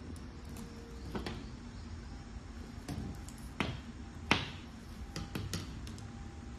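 Thin sheet-metal exhaust manifold gasket for an Isuzu 4HK1 being flexed and handled: a scattering of sharp clicks and ticks, the loudest about two-thirds of the way through, over a low steady background hum.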